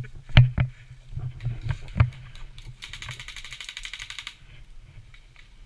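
A few sharp knocks, then about two seconds in a fast, even rattle of roughly fifteen to twenty clicks a second that lasts about a second and a half: an airsoft gun firing a full-auto burst.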